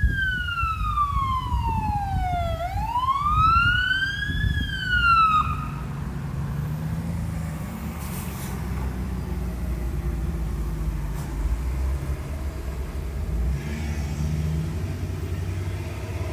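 Fire truck siren sweeping down and then up in pitch and cutting off about five seconds in, followed by the steady low rumble of the truck's engine.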